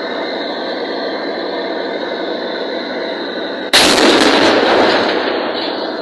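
A tank's engine and tracks run steadily. About two-thirds of the way in comes a single sudden, very loud blast of heavy gunfire, which dies away over about a second and a half.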